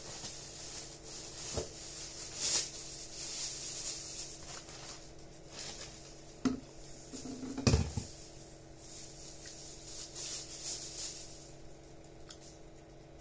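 Light knocks and rustles from someone moving close to the microphone, with one louder thump just under eight seconds in, over a steady faint hum and hiss.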